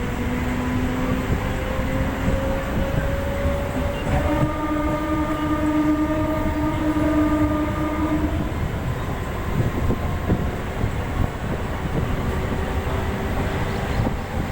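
Train pulling away from a station: a steady rumble with scattered knocks, and a tone that slowly rises in pitch over the first half as it gathers speed.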